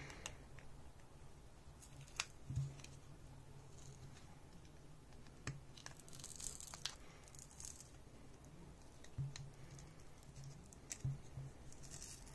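Heat spreader being pried off a Corsair Vengeance RAM stick with a plastic pry tool: faint tearing of the heat-softened adhesive as it comes apart, with scattered small clicks and short rasps.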